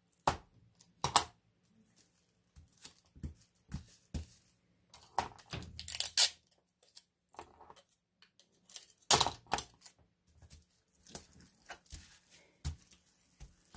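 Sticky tape being pulled off and torn in a series of short, sharp rips, with paper pattern rustling between them as the tape is pressed down.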